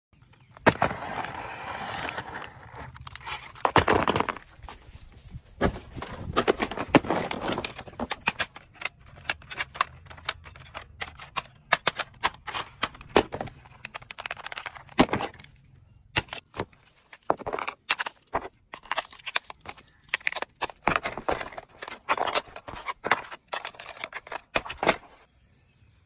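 Irregular plastic clicks, knocks and rattles with brief rubbing, from a toy RC car and its steering-wheel remote being handled.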